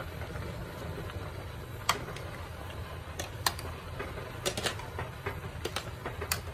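A metal ladle stirring a pot of curry, knocking and clinking irregularly against the rim and sides of the aluminium pot, the loudest knock about two seconds in. A steady low rumble runs underneath.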